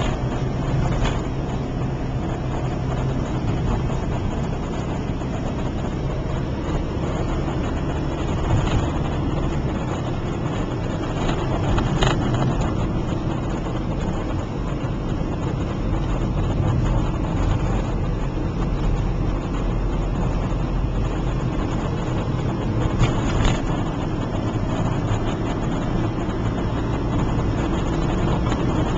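Car engine and road noise heard from inside the cabin while driving: a steady low drone whose hum shifts about ten seconds in and again a few seconds later, with one sharp click about twelve seconds in.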